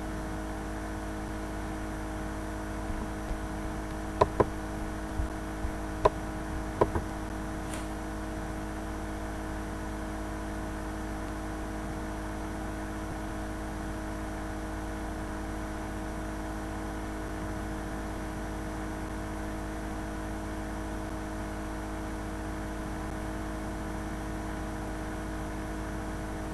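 Steady background hum and hiss with several constant tones, with a few short sharp clicks between about three and seven seconds in.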